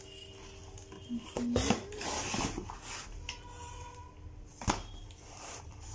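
A Lodge 12-inch cast iron skillet is handled inside its cardboard box, with the cardboard rustling and scraping and a few brief squeaks. One sharp knock comes near the end.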